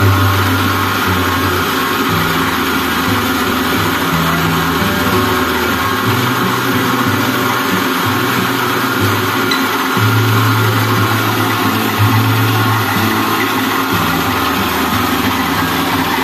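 Small electric combined rice mill running steadily as paddy is milled, its motor and milling rotor making a dense, even rushing noise while grain pours from the chute.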